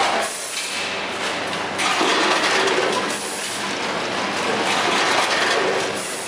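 Automatic date-packing machinery running: the steady clatter and hiss of a multihead weigher feeding a rotary pouch packing machine, rising and falling in level every second or so.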